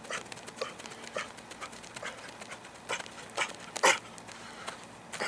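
An athlete's quick footwork through an agility ladder on grass, with hard breathing: a string of short, uneven sharp sounds, the loudest about four seconds in.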